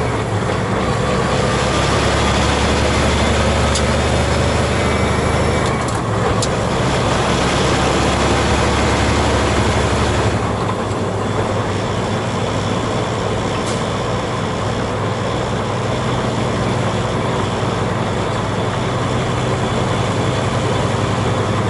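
Cab interior of a tractor-trailer on the move: the diesel engine's steady drone under road noise. The engine note shifts about six seconds in and again about ten seconds in.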